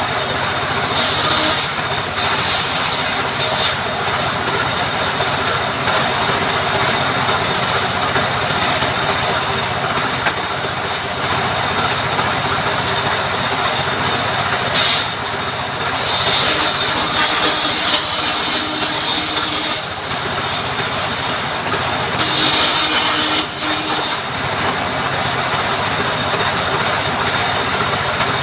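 Power saw running and cutting wood for coop framing, a steady loud whirring noise with several brief harsher, higher-pitched stretches as the blade bites: about a second in, around the middle, and again about two-thirds through.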